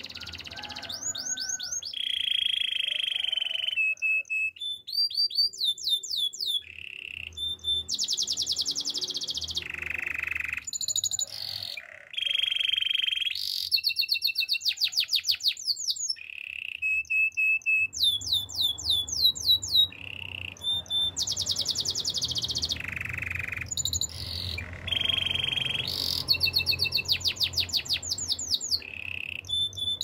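Domestic canary singing a long run of varied phrases: fast repeated trills, series of rising chirps and held buzzing rolls, with short breaks between phrases.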